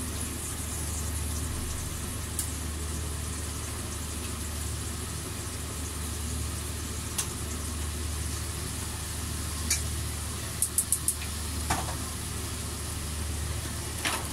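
Gloved hands pressing chicken pieces into breadcrumbs and flour, giving a soft crumbly rustle, over a steady low kitchen hum. A few sharp clicks stand out, including a quick run of four about eleven seconds in.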